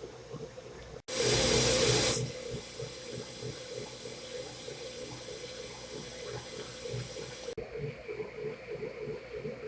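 Compressed air hissing steadily as it leaks from a low-pressure safety switch, the fault that needs repair. About a second in the hiss drops out briefly, then runs much louder for about a second before settling back.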